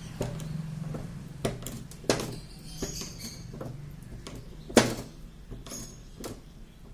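Irregular knocks and clinks, with one louder knock just under five seconds in, over a steady low hum from a running motor.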